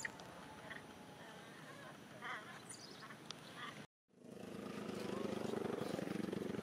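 Several short animal calls, a few spaced seconds apart. The sound then cuts out abruptly about four seconds in, and a steady engine with a fast flutter starts up and quickly grows louder.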